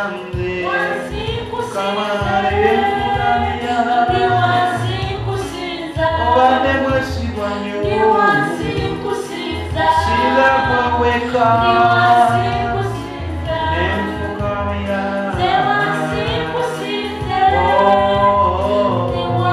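Gospel singing over backing music: voices carrying a melody above a low bass line and a steady beat.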